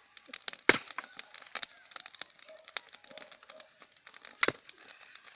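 Wood fire crackling, with many small pops and two sharp, loud cracks, one about a second in and one near the end.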